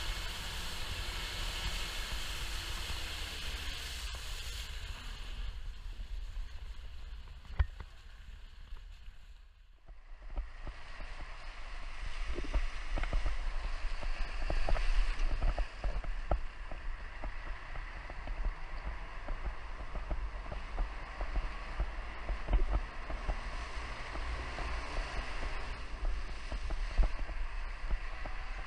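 Off-road 4x4 driving across a rocky riverbed and through shallow water: a steady rumble of wind on the exposed camera and the vehicle, with water splashing under the wheels and many scattered knocks from gravel and the jolting suspension. The sound dips out briefly about ten seconds in, then carries on with more frequent knocks.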